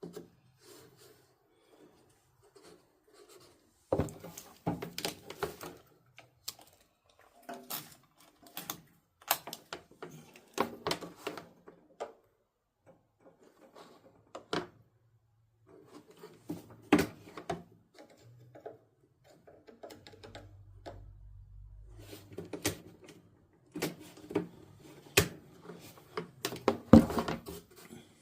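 Irregular clicks, knocks and rattles of hand tools and metal parts being handled while working on a riding mower's battery wiring.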